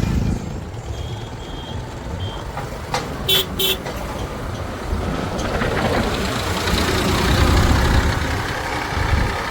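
Diesel engine of heavy earthmoving machinery running and working up in load, with three short high beeps about a second in and two short horn toots about three and a half seconds in.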